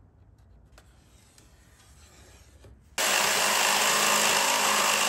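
A few faint ticks, then about three seconds in an electric power tool starts abruptly and runs steadily, cutting a thin plywood base plate.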